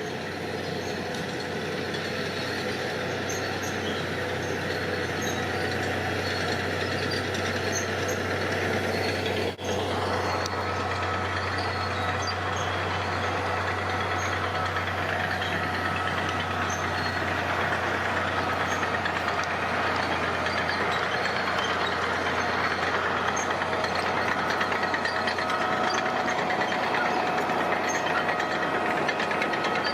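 Heavy construction machinery's diesel engine running steadily, with a momentary break about ten seconds in.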